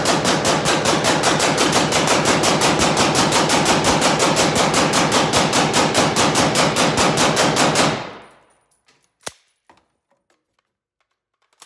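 A suppressed 7.5-inch .308 rifle fired as fast as the trigger can be pulled, a long unbroken string of loud, evenly spaced shots through the can. The firing stops about eight seconds in, followed by a few light clicks of the rifle being handled.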